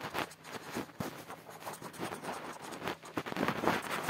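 Green felt-tip marker scratching back and forth on paper in quick, irregular strokes, colouring in a drawing.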